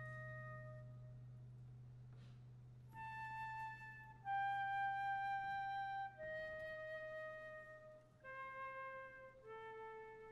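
A solo flute playing a slow melody of long held notes, one at a time; after a pause of about two seconds the notes step downward phrase by phrase. Under it a low held note fades away early on.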